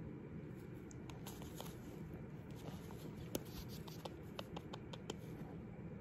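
Faint scattered small clicks and scratchy rustles close to the microphone as a sun conure is stroked and kissed, over a low steady room hum. The sharpest click comes about three seconds in, with a quick cluster of clicks about four to five seconds in.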